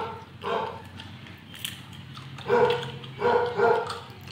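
A dog barking in short single barks: one about half a second in, then three more in quick succession a little past the middle.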